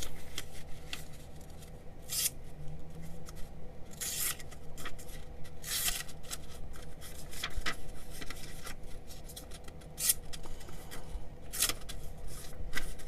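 Small blade on a ferro rod striker making short scraping cuts, one every second or two, as it is tried out for its edge.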